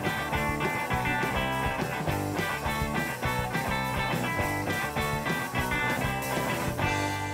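Outro background music with a steady beat, ending on a held chord near the end.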